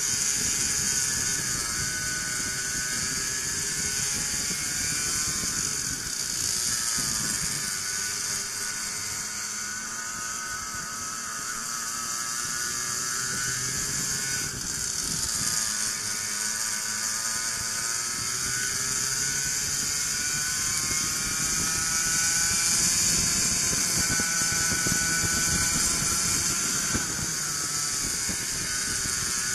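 Racing go-kart engines heard on board at speed, the revs rising on the straights and falling into the corners every few seconds, over a steady high hiss.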